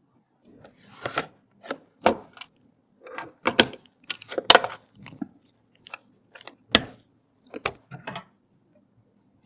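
Computer parts and packaging being handled during a PC build: a dozen or so irregular clicks, snaps and rustles.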